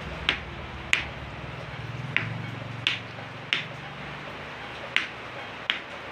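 Seven sharp, short knocks, most about two-thirds of a second apart, as a knife handle is driven down onto the blade's tang. A steady low hum runs underneath.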